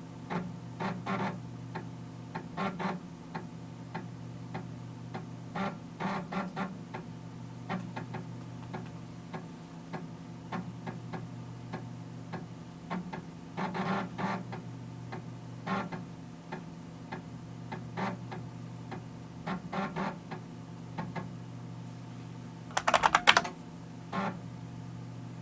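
Floppy disk drive reading: the steady hum of the spindle motor under irregular clusters of clicking, buzzing head-stepper seeks, with one louder, longer seek burst near the end.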